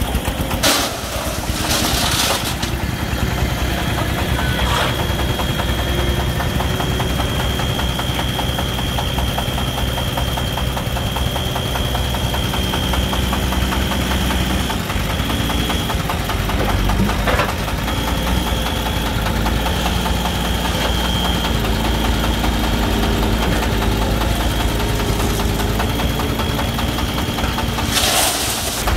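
Diesel engines running steadily: the exposed single-cylinder diesel of a three-wheeled công nông truck and a mini excavator working beside it. A steady high whine runs through most of it, with a few short rattling bursts.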